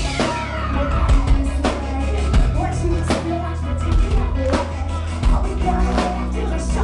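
Live rock band playing loudly: a sustained low bass under sharp drum hits.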